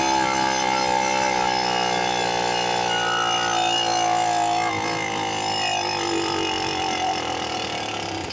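45cc Chinese chainsaw-cylinder two-stroke engine running with a steady pitched tone that sags slowly in pitch and fades, then cuts out near the end: the engine dying, which the owner takes for the motor being killed after power loss.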